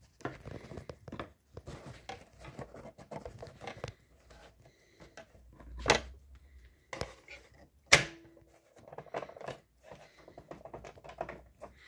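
Handling noises at a sewing machine, fabric rustling and small irregular clicks, with two sharper clicks about six and eight seconds in. The machine is not sewing.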